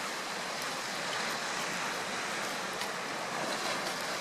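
Steady rushing of sea waves on the shore, with a few faint small clicks over it.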